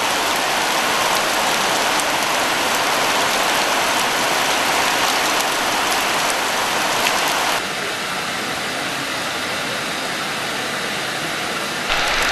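Heavy artificial rain from the overhead nozzles of a large-scale rainfall simulator, pouring onto wet ground and standing water in a steady hiss of downpour. The level drops abruptly a little about seven and a half seconds in and jumps back up near the end.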